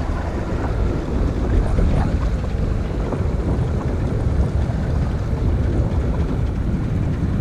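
Steady wind buffeting the microphone on an open boat, with water lapping and a few faint light knocks.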